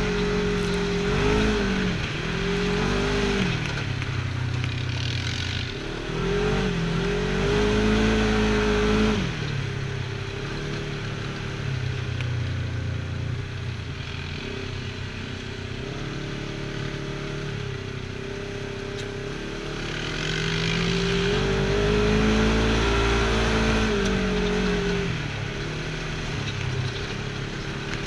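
Polaris RZR side-by-side's engine heard from inside the cab, driving along a dirt trail and repeatedly revving up and easing off: its pitch climbs and falls early, again around eight seconds in, and once more past twenty seconds, with steadier running between.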